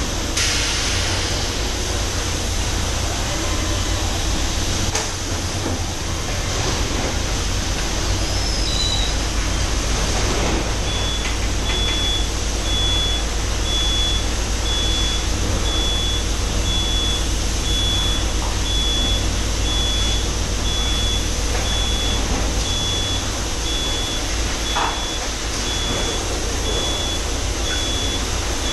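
Robotic palletizing line for 5-litre water bottles running steadily, a constant machinery hum with occasional clicks and clatter. A little over a third of the way in, a high electronic warning beep starts and repeats about once a second.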